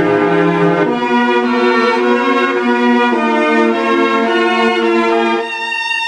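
Music for a homemade Emergency Alert System alarm: string-like chords held for a second or two each, shifting pitch a few times. Near the end they give way to a single high steady tone.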